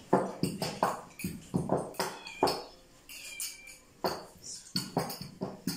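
Thin wooden rolling pin rolling dough out on a floured wooden board, with a series of irregular sharp knocks, about two or three a second, as the pin strikes and rolls on the board.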